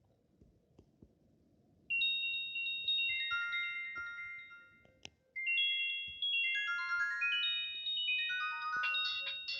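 Nokia 7650 ringtone played through the loudspeaker of an Explay SL240 mobile phone: a melody of short high notes in quick falling runs. It starts about two seconds in, breaks off briefly, then repeats, thickening near the end as a low note joins in.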